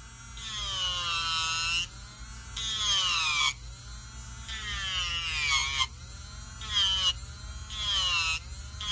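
SML electric nail drill grinding down an acrylic nail. Its high whine rises and falls in pitch with each pass of the bit against the nail, about five passes with short pauses between.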